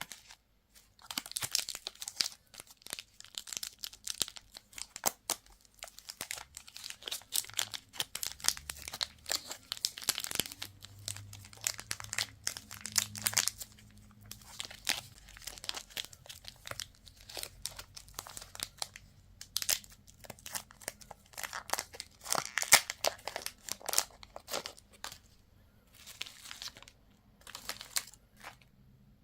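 Candy wrappers crinkling and tearing as they are unwrapped by hand: irregular bursts of crackling with short pauses between them.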